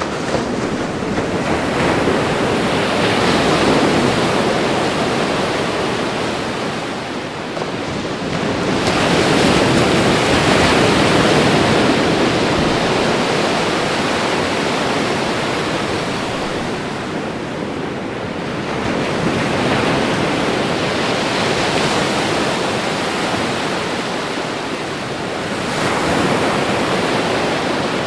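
Ocean waves breaking and washing on the shore in a continuous rush of surf that swells and eases every several seconds, with a light wind noise.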